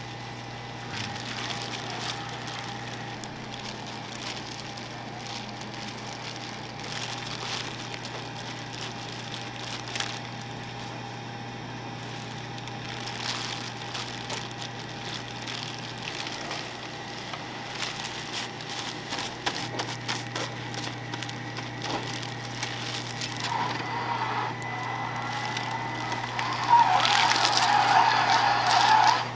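Automatic gimbap rolling machine running with a steady hum, under crinkling and rustling of plastic over-sleeves and gloves as rice and fillings are handled on its belt. For the last few seconds the machine's running sound grows louder and rougher.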